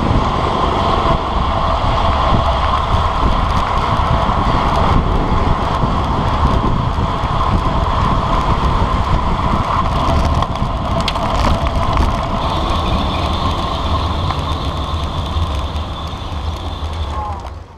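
Steady rush of wind over a handlebar-mounted camera's microphone, with tyre and road noise from a road bike riding at speed in a group.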